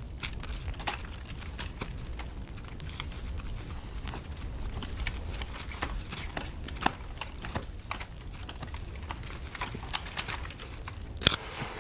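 War-film battlefield soundtrack: scattered small crackles and knocks over a low rumble, with one sharp, much louder crack about eleven seconds in.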